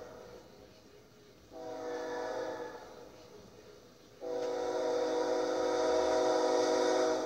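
Air horn of a BNSF GE ES44AC locomotive approaching on a grain train: a short blast about a second and a half in, then a louder, longer blast of about three seconds starting about four seconds in.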